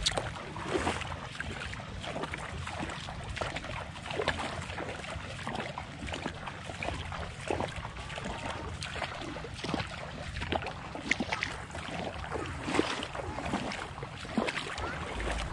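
Footsteps wading through shallow seawater, with splashes and sloshing at irregular intervals.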